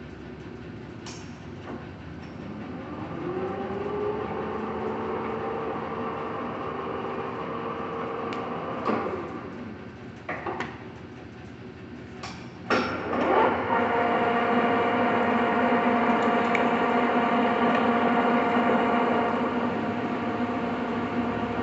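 1981 Lodge & Shipley Powerturn engine lathe running: its gear whine rises in pitch as the spindle speeds up about three seconds in. Several sharp clunks follow, and from about two-thirds of the way through it settles into a louder, steady whine of several tones.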